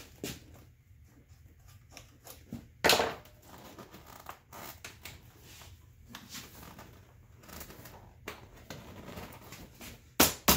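Hands working a seat cover over a truck seat: rustling and scraping of the cover material, with a few sharp clicks or snaps, the loudest about three seconds in and a quick run of them near the end.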